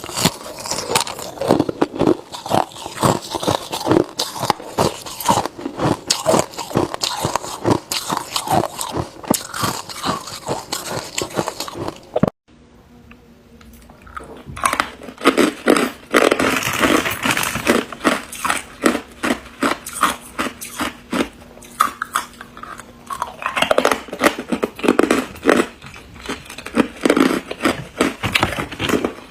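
A person biting and chewing ice close to the microphone: a rapid, irregular run of loud crunches. About twelve seconds in it breaks off abruptly for about two seconds, then the crunching starts again.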